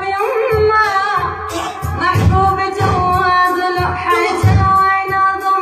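An Arabic song: one voice singing a wavering, ornamented melody over music with a steady low beat.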